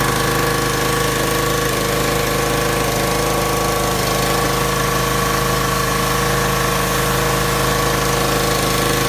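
Troy-Bilt pressure washer's Briggs & Stratton 190cc engine running steadily at working speed with the spray trigger held, the pump pushing water out with a steady hiss. It is a little louder than at idle, but not much.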